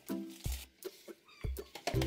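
Background music with bass notes on a steady beat, thinning out for about a second in the middle.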